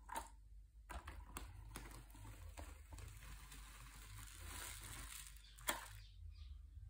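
3D-printed plastic clamshell grab bucket closing on fine grains and being lifted: a faint hiss of grains sliding and trickling, with small clicks of the plastic shells and linkage. A sharp click comes at the start and a louder one near the end.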